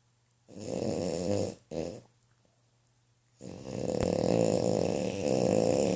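Snoring in drawn-out breaths: one snore about half a second in, a brief one right after, then after a pause a long snore starting about three and a half seconds in.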